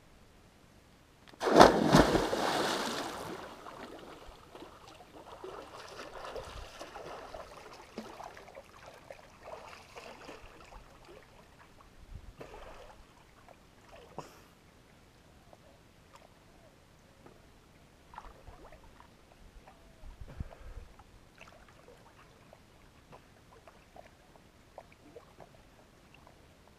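A person jumping off a rock ledge into a river: one loud splash about a second and a half in that dies away over a couple of seconds, then quieter irregular sloshing and splashing of water as he swims.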